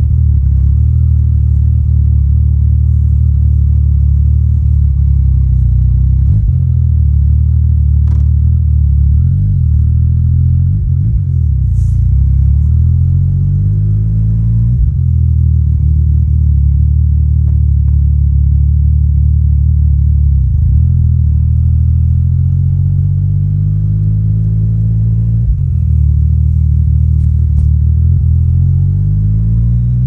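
Yamaha Tracer 900 GT's 847 cc inline-three through an Akrapovic exhaust, ridden at low speed, its engine speed rising and falling through the gears. A few sharp pops come from the exhaust, popping that the owner finds new since the bike's Woolich dyno retune.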